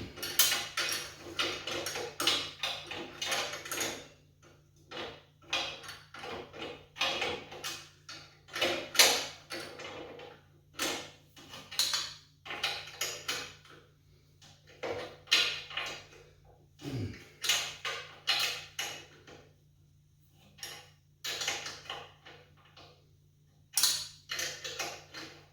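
Box wrench working an 18 mm bolt on a generator frame: short, irregular metallic clicks and scrapes, stroke after stroke, with a pause near the end.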